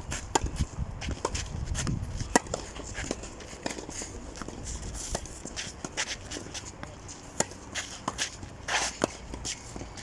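Scattered sharp knocks and shoe scuffs on a clay tennis court: tennis balls bouncing and players' footsteps. The loudest knock comes about two and a half seconds in, with a short scrape near the end.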